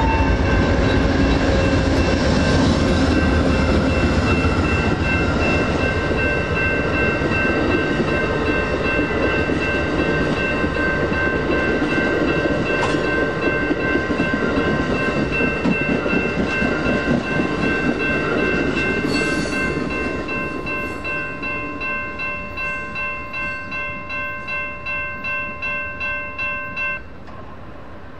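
Amtrak P42DC diesel locomotives rumble past, followed by bilevel passenger cars rolling by with wheel clatter. Under it all, electronic crossing bells ring steadily. About two-thirds of the way through, the train noise fades and the bells are left ringing about twice a second. They stop shortly before the end, as the crossing clears after the train has passed.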